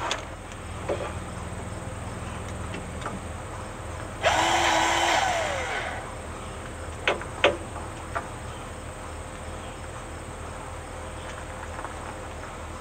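A cordless grease gun's motor runs for about two seconds, starting about four seconds in, and winds down with a falling pitch as grease is pumped into a mower fitting. Two sharp metallic clicks follow about seven seconds in as the coupler is worked on the fittings.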